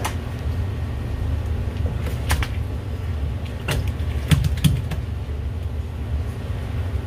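A large black sea bream in a landing net being set down on a plastic cutting board, the net and fish knocking and clattering on the board several times, loudest twice about halfway through, over a steady low hum.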